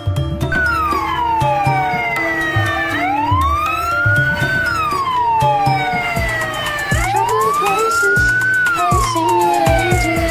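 Emergency-vehicle siren wailing, its pitch sliding slowly down and back up about every four seconds, over background music with a beat.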